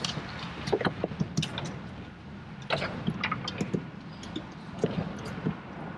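Choppy water slapping and splashing irregularly against a small fishing boat's hull, over a steady low rumble.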